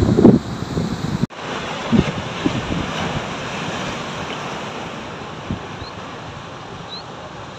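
Heavy surf breaking and washing over a beach and black volcanic rocks: a steady rushing hiss of foaming water. Wind buffets the microphone with low gusty thumps at the start. After a sudden brief drop about a second in, the surf goes on as a steadier, slowly fading wash.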